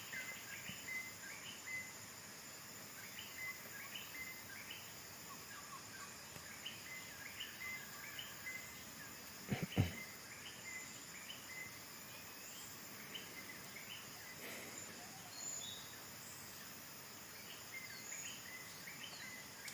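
Short rising bird chirps repeated many times over a steady high drone of insects, with one brief knock about ten seconds in.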